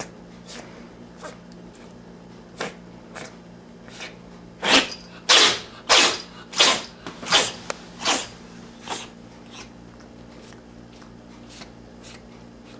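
A cat sneezing over and over in a fit: a few faint sneezes, then a loud run of about seven spaced under a second apart from about five seconds in, tailing off into fainter ones.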